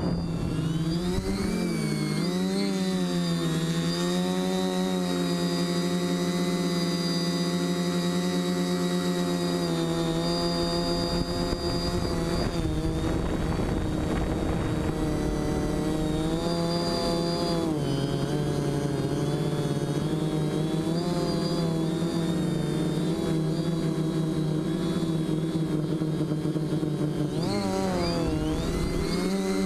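Quadcopter's electric motors and propellers whining in flight, a steady buzz whose pitch dips and climbs several times with throttle changes. Air rushes over the onboard camera in stretches.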